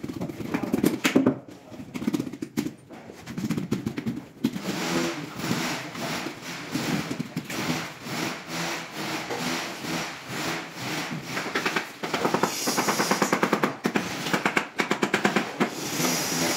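Rapid, evenly repeated knocking, several taps a second, with scraping and rubbing from large tile slabs being bedded and adjusted on the floor.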